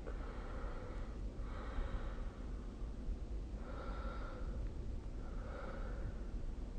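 A sleeping person snoring: about four rough, noisy breaths in and out, each lasting under a second.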